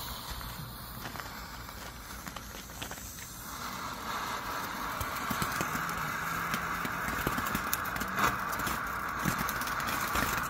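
TNT Fire Ants baby box fountain firework burning: a faint fuse fizz, then, about three and a half seconds in, a steady hiss of spraying sparks with scattered crackles.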